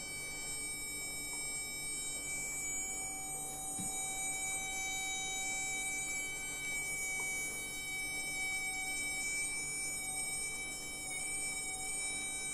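Small replacement drone motor for an SG907 quadcopter spinning without a propeller on a battery, a steady high whine made of several fixed tones. It is being run to check whether it overheats.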